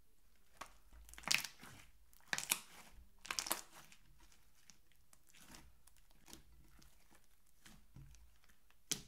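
Hands stretching, folding and pressing thick pink slime in a glass baking dish: sticky crackling as the slime tears and pops out trapped air. It comes in short bursts, the loudest about a second in, twice more around two and a half to three and a half seconds in, and once just before the end, with softer squishes between.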